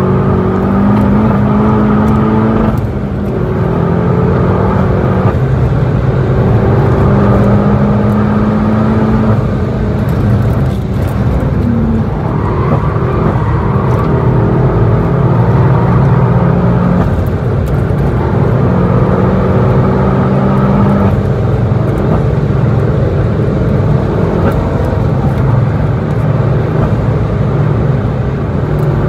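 The 2017 VW Golf GTI Clubsport S's turbocharged 2.0-litre four-cylinder, heard from inside the cabin under hard acceleration. Its pitch climbs and then drops back at several gear changes, over constant tyre and road noise at speed.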